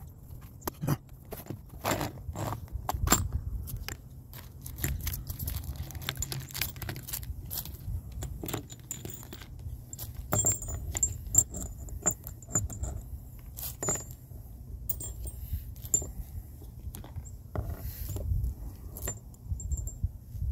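Irregular light metallic clinks and clicks of small tools and hardware being handled on a workbench, over a low steady hum.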